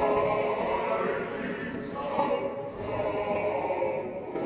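Choral music: a choir singing held, layered notes.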